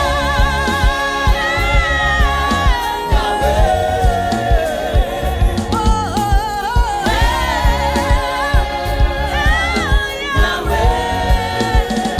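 Gospel music: a group of voices singing a melody with vibrato over a steady drum beat.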